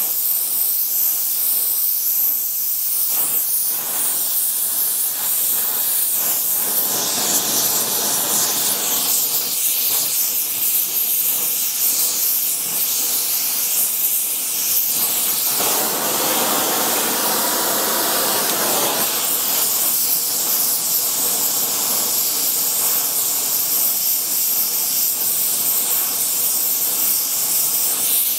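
Gas torch flame hissing steadily while it heats a seized nut on a cast-iron casting to free it. The hiss fills out lower twice for a few seconds, about a quarter of the way in and just past the middle.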